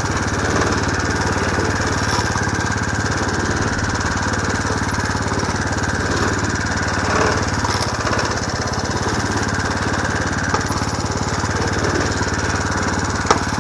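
Small 3.5-horsepower engine running steadily, driving a home-built 1/3-scale hay baler, with a short click near the end.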